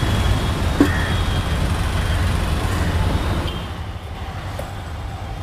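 Street traffic noise: a steady low rumble with a few faint clicks. It becomes quieter after about three and a half seconds.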